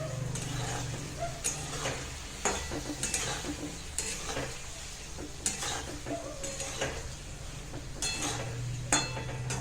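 A spatula scraping and stirring potatoes and peas frying in oil with spices in a kadai, in irregular strokes about once a second, over a steady sizzle.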